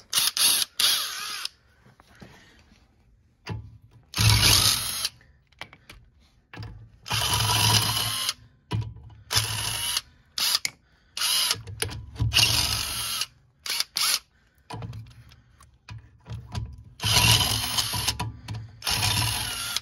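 Draper Storm Force cordless impact wrench hammering on a car's wheel nuts in about ten short bursts, each under two seconds, with pauses between them.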